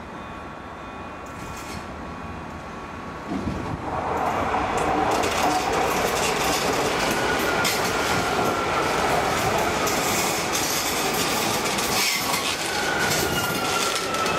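Metrovalencia electric train passing close by, getting much louder three to four seconds in. Its wheels click over the rail joints, and a high whine slowly falls in pitch, twice.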